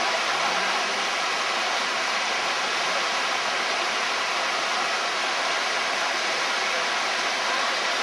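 Fast river water rushing steadily over rocks.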